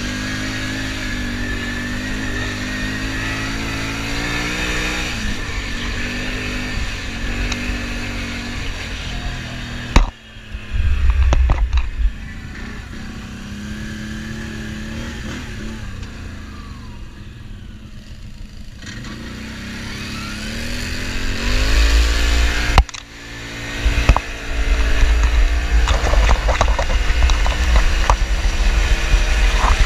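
Quad bike (ATV) engine running as it rides, its pitch rising and falling with the throttle, with wind buffeting the microphone. The sound changes abruptly twice, at about ten seconds and again near the end, where the engine goes quieter and then picks up.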